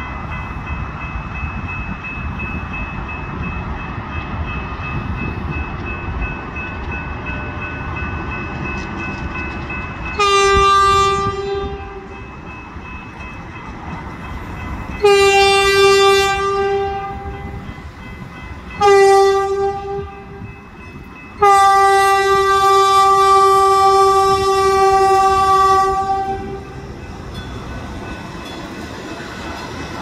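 Horn of a Stadler FLIRT diesel multiple unit sounding the grade-crossing signal: two long blasts, a short one, then a final long blast, starting about ten seconds in. Each blast is one steady note.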